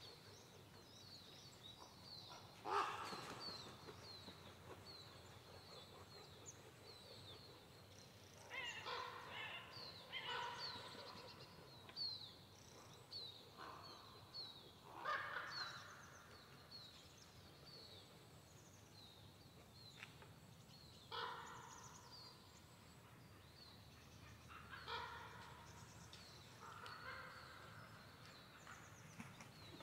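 Crows cawing in hoarse calls, singly and in short runs, with bouts every few seconds, over a small bird's steady series of quick high chirps.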